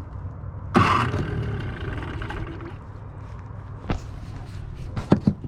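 Nissan Tohatsu 8 hp outboard being pull-started after sitting: a sudden start about a second in as the cord is pulled and the engine turns over, running briefly and fading away without catching. A few sharp clicks follow.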